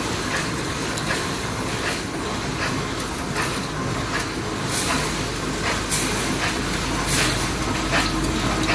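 M6×70 five-station cold forging machine running, a steady mechanical clatter with regular sharp clacks from its forming strokes.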